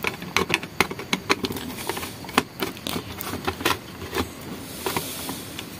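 Screwdriver tightening the wire terminal screws on the back of a plastic wall switch-and-socket plate: irregular small clicks and scrapes of the tip in the screw heads.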